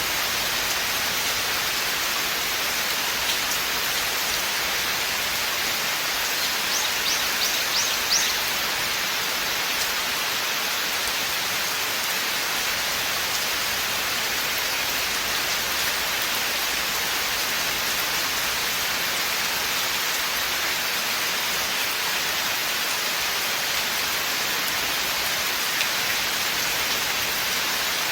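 Steady rain falling through forest foliage, an even hiss of countless drops. About seven seconds in, a quick run of high ticks lasting under two seconds sounds over it.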